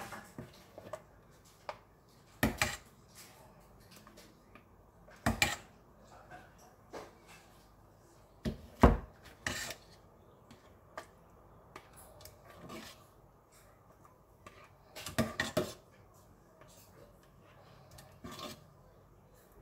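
Metal ladle scraping and clinking against a stainless steel pot while scooping thick purée, in scattered knocks with quiet between; the loudest comes about nine seconds in and a quick cluster follows around fifteen seconds.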